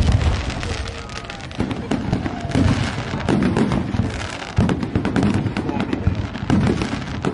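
Fireworks display: aerial shells bursting with deep booms about once a second, over dense, continuous crackling.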